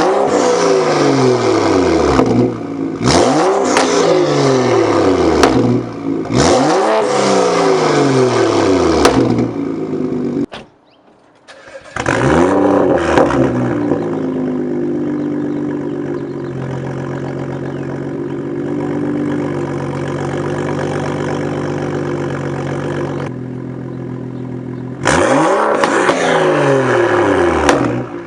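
BMW M235i's turbocharged N55 inline-six, straight-piped from the turbo back with no muffler or resonator, being free-revved in quick blips that rise and fall back. This happens about every three seconds, then again near the end. In between it settles into a steady idle with a constant drone, and there is a brief break to near silence about eleven seconds in.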